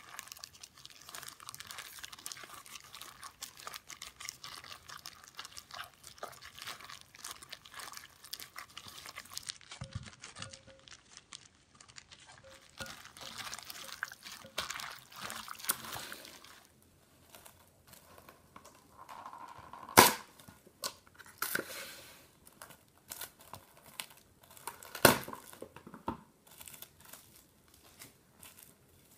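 A hand in a disposable plastic glove squishing and mixing marinated sliced beef and onions in a glass bowl, with steady wet crackling and glove crinkle for about the first half. After a short lull, plastic cling wrap is pulled, torn and stretched over the bowl, with crinkling and several loud sharp snaps.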